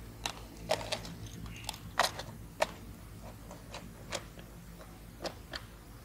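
Thin plastic food container holding fishing lures being handled: irregular sharp plastic clicks and crackles, the loudest about two seconds in.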